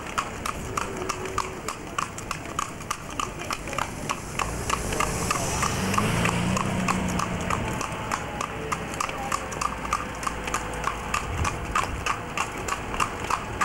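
New Forest pony's hooves clip-clopping on tarmac in an even, quick rhythm as it pulls a carriage along. A low rumble swells and fades in the middle.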